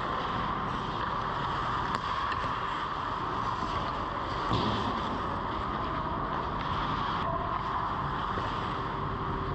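Ice hockey play heard from inside the goal: a steady rink hum and hiss with skate and stick noises, a click about two seconds in and a thump about four and a half seconds in as the goalie drops to the ice.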